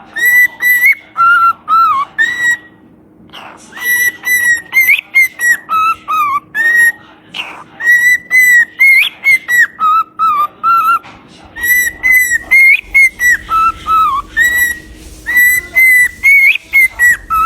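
Parrot whistling a tune: clear whistled notes hopping between a higher and a lower pitch with quick upward flicks, the same phrase repeated several times with short pauses between.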